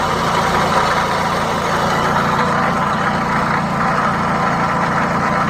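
Toyota Camry XV40's 2.4-litre four-cylinder engine (2AZ-FE) idling steadily, with an extraneous noise from the engine bay that is not there with the engine switched off.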